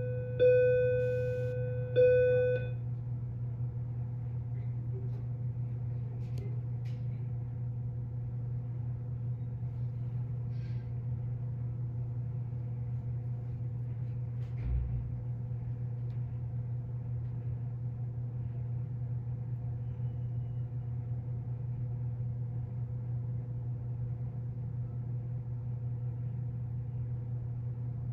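Two bell-like chime tones, each struck and ringing away, about a second and a half apart, then a steady low hum with a few faint taps and a soft thump from hands working clay.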